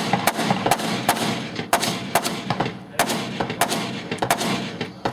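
Gunshots fired in quick succession, about ten over a few seconds at uneven spacing, each with a short echo.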